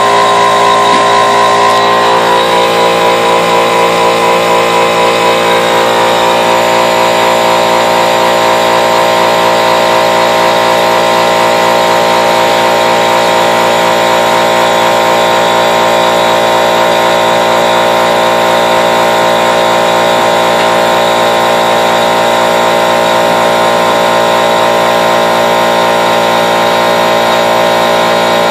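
Dyna Myte 1007 CNC mill running through a program, its motors giving a loud, steady whine made of several tones. The pitch shifts slightly about two seconds in and again around six seconds in.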